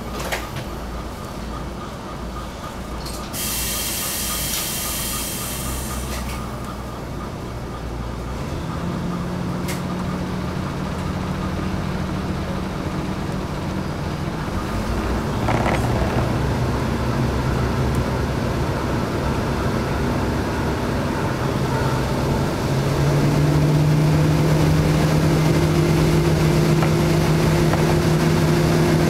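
KiHa 52 diesel railcar's DMH17 engines with a hiss of air from the brakes about three seconds in. Then the engine drone sets in and steps up in pitch and loudness as the railcar pulls away and gathers speed.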